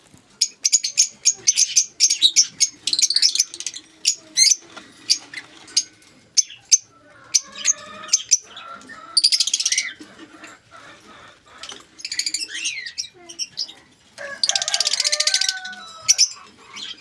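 Lovebirds chirping and chattering: a steady run of short, sharp high chirps, with two longer bursts of dense, buzzy chatter, one about nine seconds in and one near the end.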